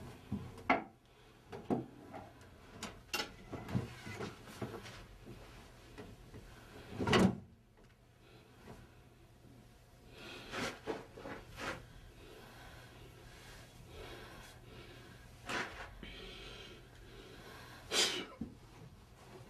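A drawer being opened and rummaged: scattered knocks, clicks and rattles, with a louder thump about seven seconds in and another near the end.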